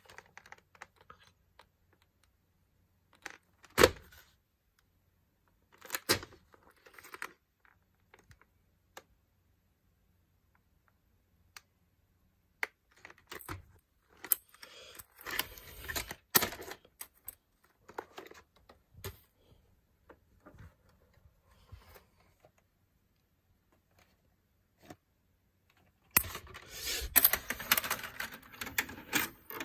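Scattered clicks, taps and rattles of a plastic VHS clamshell case being picked up, turned over and handled, the sharpest knock about four seconds in. Near the end comes a longer stretch of dense rattling and rustling.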